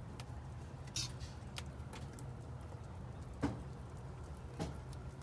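A few scattered sharp clicks and knocks, the loudest about three and a half seconds in, over a low steady hum.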